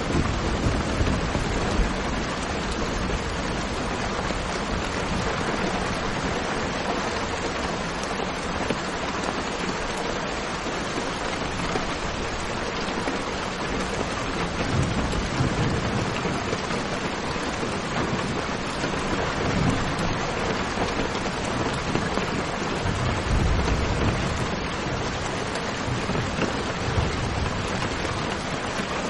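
Steady rain hissing evenly, with several low rumbles of thunder rising and fading through it.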